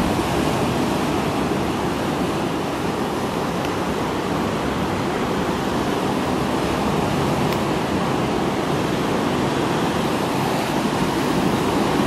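Steady rush of ocean surf breaking on a sandy beach, mixed with wind.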